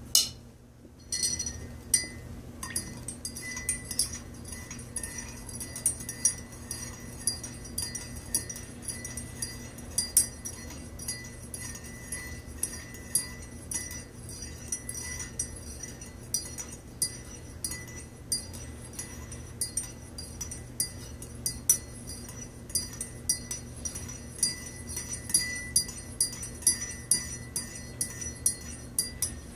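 Metal teaspoon stirring coffee in a ceramic mug, clinking against the inside of the mug in irregular strokes, about one or two a second. A louder knock comes at the very start.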